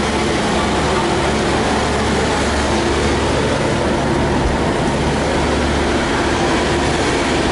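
Vehicle engine idling steadily close by: a continuous low drone with a constant hum.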